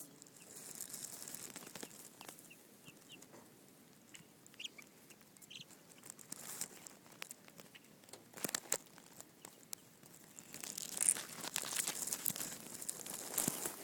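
Two-week-old baby chicks peeping now and then with short chirps, amid clicking and rustling that grows louder for a few seconds near the end.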